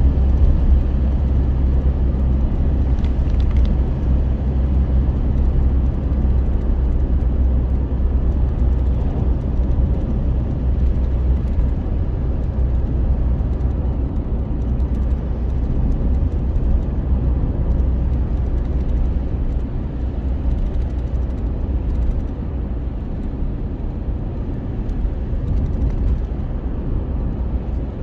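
Steady low rumble of a running engine or motor, even throughout.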